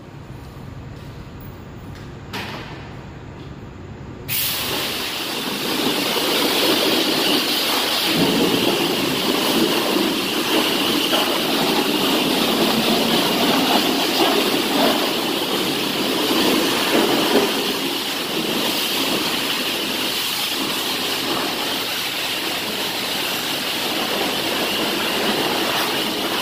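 High-pressure washer wand spraying water onto a semi truck: a steady, loud hiss of spray that comes in suddenly about four seconds in, after a quieter stretch.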